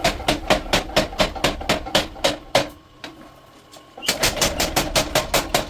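Steady hammer blows on hot steel being forged into a blade on an anvil, about four to five strikes a second. The strikes stop for just over a second about two and a half seconds in, then start again a little faster.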